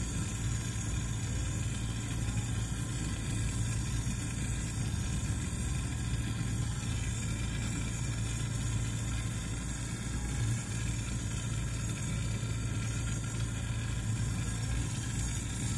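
Steady rushing hiss of a glassworking bench torch's flame burning, with a constant low hum underneath.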